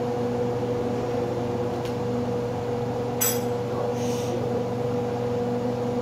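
A kitchen appliance's motor or fan humming steadily at a constant pitch, with one sharp click about three seconds in.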